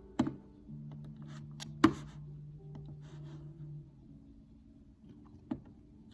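Scattered computer keyboard and mouse clicks: three sharp clicks, the loudest about two seconds in, with fainter taps between them, over soft held low tones.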